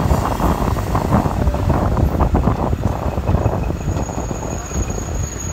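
A motorcycle riding along a street, heard from the rider's seat: a loud, uneven low rumble of engine, road and wind noise on the microphone.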